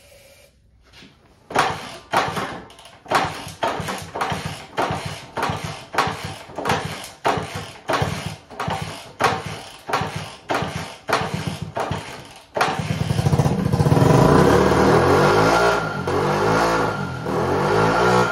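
1964 Honda 50 Super Cub's small single-cylinder four-stroke engine being turned over on starting fluid sprayed straight into the intake: a regular series of sharp chuffs about twice a second. About twelve seconds in it catches and runs, its pitch rising and falling. The firing shows the engine is not seized and is worth reviving.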